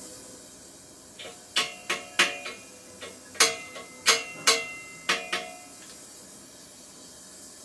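About ten light, irregular metal clinks and taps, each ringing briefly with a few clear tones, as steel parts and tools are handled while brazing a chromoly frame's seat lug. A faint steady hiss lies under them.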